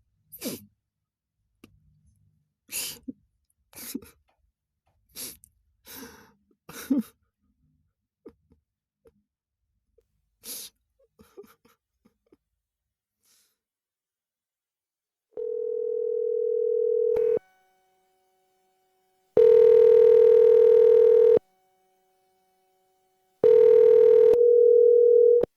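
A few short, breathy human sounds, then a phone's ringback tone heard through the handset: three steady two-second rings with pauses between them, as a call rings out before going to voicemail.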